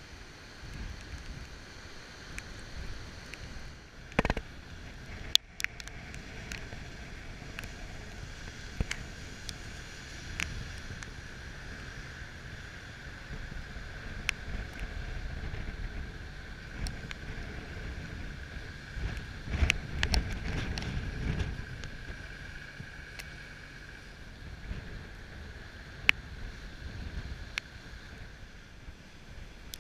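Heavy storm surf breaking on a rocky shore, with wind buffeting the microphone in low gusts that are loudest about two-thirds of the way through. Scattered sharp ticks stand out above the wash.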